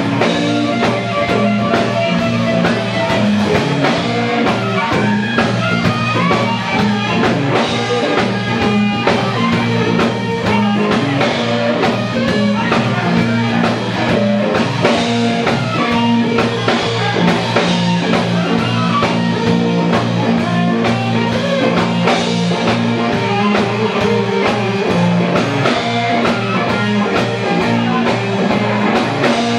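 A live blues-rock band playing: harmonica blown into a handheld microphone over electric guitar and a drum kit.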